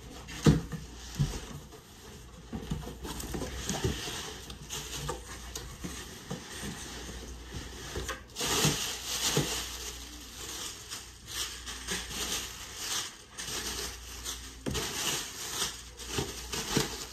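A cardboard shipping box being unpacked: a few knocks and scrapes of the cardboard early on, then the plastic wrapping inside rustling and crinkling from about halfway through, with short scratchy strokes.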